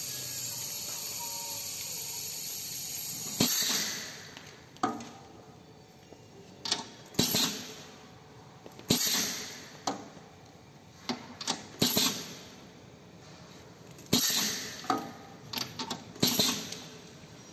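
Small CNC engraving machine going through an automatic tool change: a steady running noise for about the first three and a half seconds, then a string of sharp clicks and knocks, each followed by a short hiss that fades out, as the spindle releases and clamps tools.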